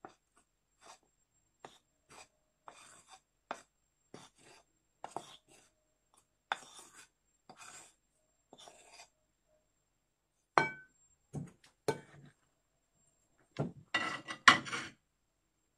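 Metal spoon scraping gram flour off a plate into a glass bowl, a run of short soft scrapes about twice a second. These are followed by several sharper knocks and clinks of the spoon and dishes, loudest near the end.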